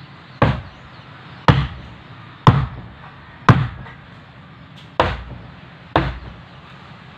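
Wooden mallet striking wood along a boat's gunwale: six sharp knocks about a second apart, with a slightly longer gap after the fourth.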